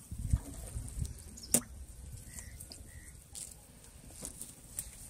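Fishing net being hauled in by hand over the side of a wooden boat. Quiet handling sounds with low bumps near the start, one sharp knock about a second and a half in, and a few faint ticks.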